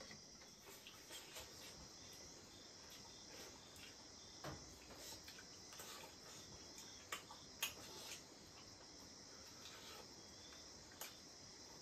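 Faint, steady chirping of crickets, with a few soft clicks scattered through it.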